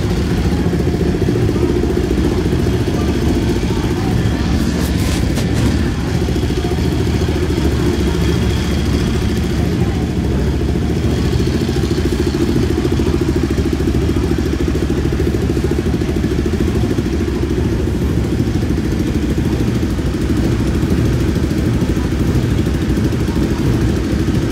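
Motorcycle engines running steadily, a constant low rumble at an even level, with a brief clatter of clicks about five seconds in.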